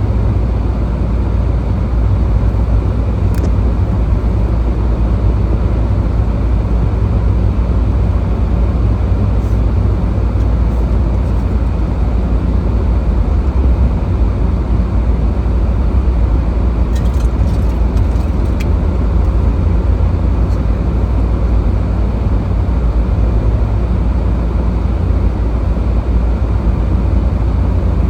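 Steady low rumble of a car's engine and tyres heard from inside the cabin while it drives slowly through snow, with a few faint ticks.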